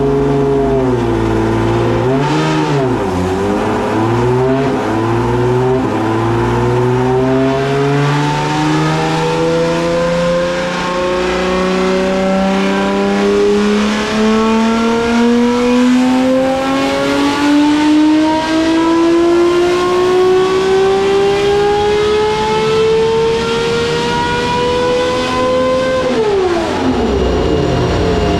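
Homemade 5-litre V12 engine with twelve open exhaust pipes running on a chassis dynamometer: a few short revs up and down, then one long pull with the pitch climbing steadily for about twenty seconds. Near the end the throttle closes and the revs drop sharply to a steady lower running note.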